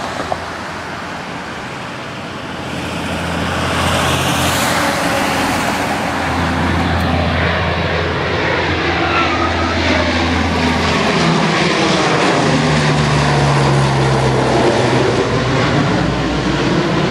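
CC-130 Hercules four-engine turboprop climbing out after takeoff and passing low overhead: a steady propeller drone that grows louder about three seconds in, then slides down in pitch as the aircraft passes over.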